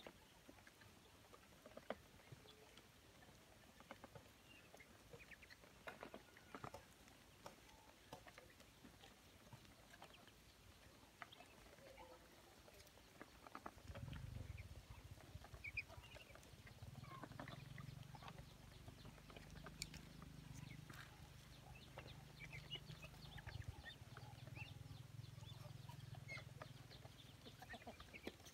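Faint peeping and pecking of a flock of young ducks feeding: scattered short high calls and ticks of bills on the ground and feeder. A low hum comes in about halfway through.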